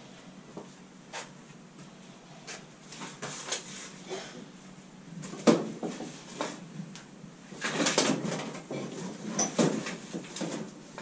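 Someone rummaging through tools and objects on a workshop bench: irregular knocks, clicks and rattles, with a sharp knock about halfway through and a longer clatter shortly after.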